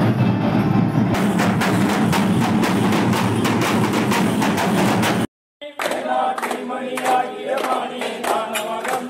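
Chenda drums played fast and dense by a street band, until the sound cuts off abruptly about five seconds in. After the cut, a group of voices sings to a steady beat.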